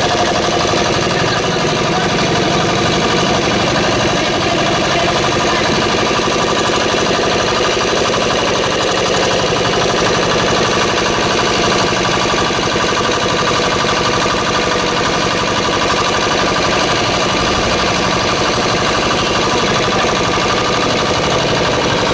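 Small air-cooled single-cylinder diesel engine, new, running steadily while its throttle is worked by hand.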